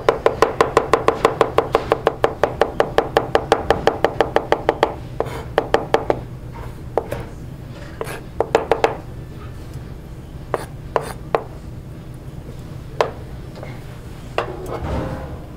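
Chef's knife rapidly mincing garlic on a plastic cutting board, about seven quick chops a second for the first five seconds, then slower, scattered chops and a few light knocks.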